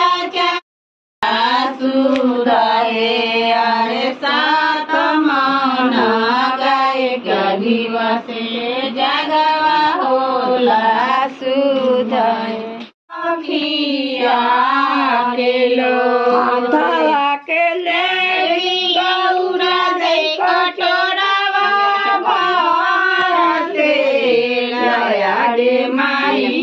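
A group of women singing a traditional Bihari wedding ritual song together, unaccompanied. The singing breaks off twice very briefly, about a second in and about halfway through.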